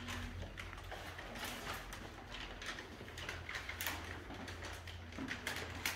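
Room ambience with a steady low hum and scattered small clicks and rustles, a couple of them sharper near the end.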